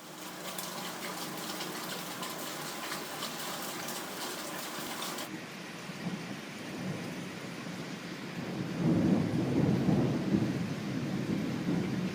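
Heavy rain falling, a dense hiss full of fine drop patter. About five seconds in it cuts abruptly to a duller rush, and a low rumble swells up around nine seconds in.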